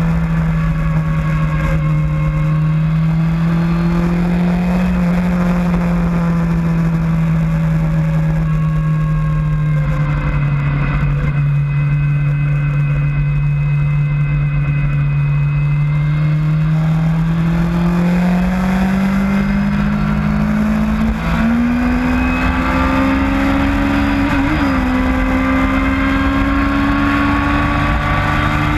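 Motorcycle engine heard from a camera on the bike, with rushing wind underneath. The engine holds a steady note while cornering, then rises steadily in pitch as the bike accelerates hard, with one brief break in the note about two-thirds of the way through.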